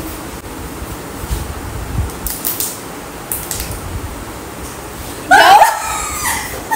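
A few light clicks and taps, then about five seconds in a loud, excited woman's shriek with gliding pitch, breaking into laughter.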